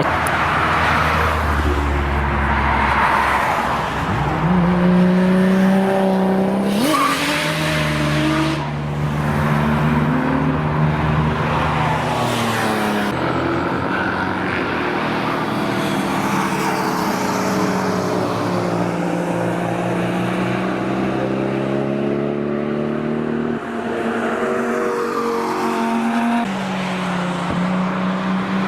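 Toyota Supra engine revving hard, its pitch rising and falling again and again, with tyres squealing under it.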